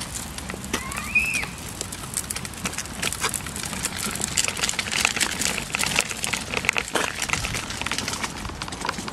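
Pet stroller wheels rattling and clicking as the stroller is pushed over paving slabs and gravel, a steady run of small knocks. A short high call rises and then falls about a second in.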